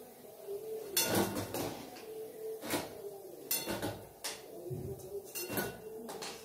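Steel slotted spoon clinking and scraping against a steel kadai and plate as fried pakoras are lifted out of the oil, in scattered knocks about a second apart.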